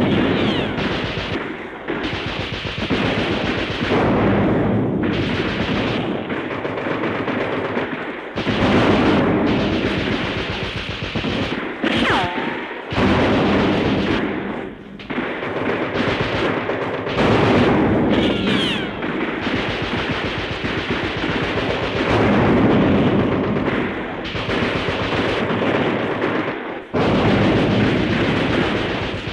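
Battle background sound effect from an old record: continuous machine-gun and rifle fire, rising and falling in waves, with a couple of brief whistling glides about twelve and eighteen seconds in.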